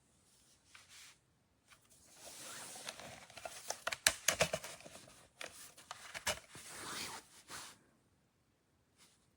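Handling noise: rustling and scraping for several seconds, with a quick run of sharp clicks and knocks about four seconds in and another knock a couple of seconds later.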